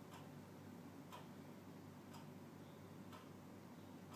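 Clock ticking faintly and evenly, about once a second.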